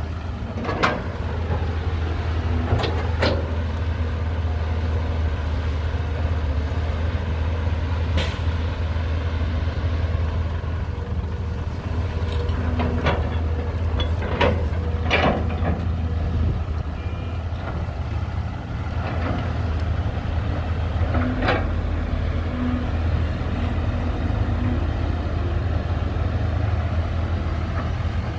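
Heavy diesel machinery running steadily with a low engine drone, with sharp clanks every few seconds and a short hiss about eight seconds in.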